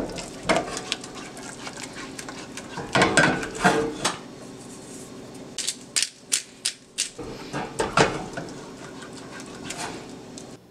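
Spatula scraping and knocking against a saucepan while scrambled eggs are stirred, with a quick run of about six sharp knocks a little past halfway.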